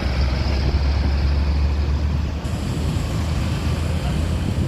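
A heavy road vehicle driving past close by: a deep, steady engine rumble with road noise, loudest in the first half.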